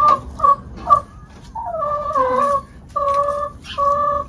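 Brown laying hens calling from a nest box, as a hen is on the point of laying. There are a few short calls in the first second, a longer wavering call in the middle, then two even, drawn-out calls near the end.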